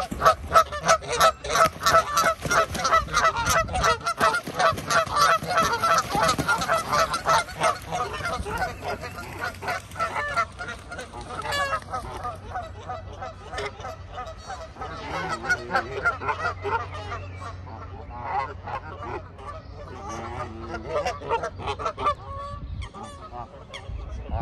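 A flock of geese honking, many short calls following fast on each other. The calling is loudest over the first eight seconds or so, then goes on more faintly and thinly.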